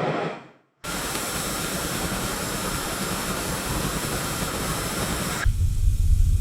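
Steady, even hiss like white noise that starts abruptly after a brief silence, then cuts over abruptly near the end to a loud deep rumble.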